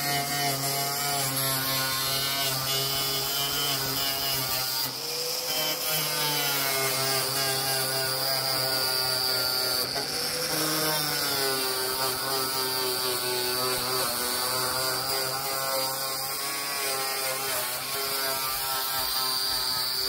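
Small electric angle grinder running continuously, a steady motor whine whose pitch sags briefly a couple of times as the disc is pressed against the wheel-arch edge.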